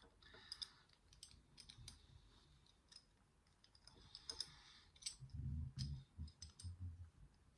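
Faint, scattered clicks and light metallic taps from the small parts of a four-lever safe drawer lock being handled as it is taken apart, with soft handling bumps in the second half.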